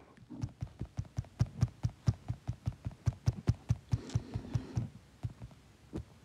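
A rapid run of soft taps or knocks, about five or six a second, lasting about four and a half seconds before stopping.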